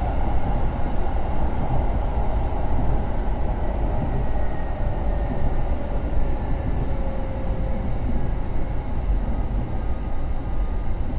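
Kintetsu 2050 series electric train running, heard from inside the car: a steady low rumble of wheels on the track with a faint tone partway through.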